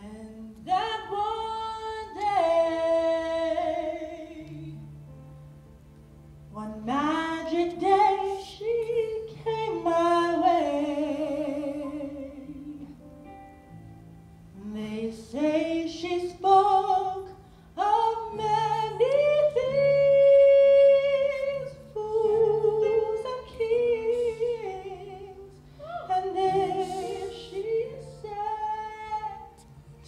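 A woman singing solo into a microphone in long, slow phrases with vibrato and short breaths between them, over soft low held notes.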